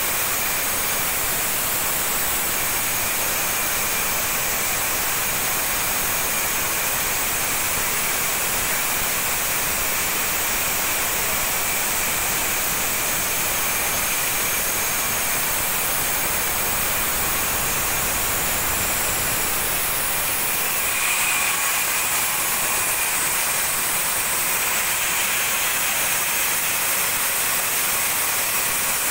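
Homemade sawmill machinery running: a loud, steady, hissing mechanical drone from its motor and saw, with no pauses. It gets slightly louder and brighter about two-thirds of the way through.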